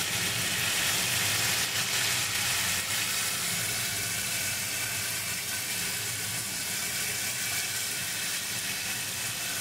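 Ridge gourd and potato pieces sizzling steadily in hot oil in a wok.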